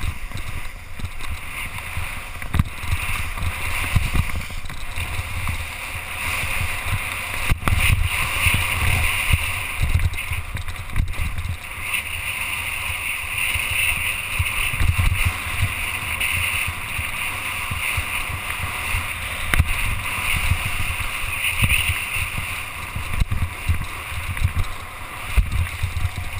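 Skis scraping and hissing over snow through a run of turns, the hiss swelling and fading, with wind buffeting the helmet camera's microphone as a gusty low rumble.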